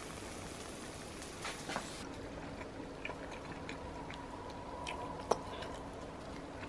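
Faint background hiss that thins out about two seconds in, with a few scattered light clicks and taps, the sharpest about five seconds in.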